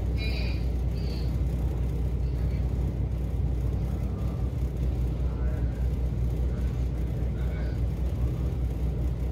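Ferry's diesel engines running, a steady low drone heard from the open deck, with faint voices in the background.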